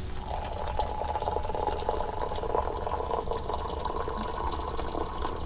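Coffee pouring from a French press into a ceramic mug: a steady stream splashing into the mug, starting a moment in.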